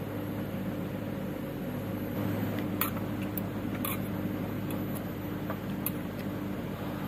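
Steady mechanical hum, as of a running motor or fan, with a few sharp clicks about three and six seconds in.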